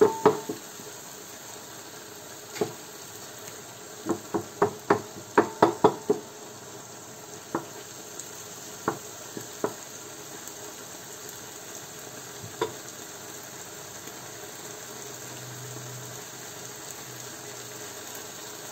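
Mushrooms and sofrito frying gently in a pan, stirred with a wooden spoon that knocks against the pan: a quick run of knocks about four to six seconds in, then a few single taps.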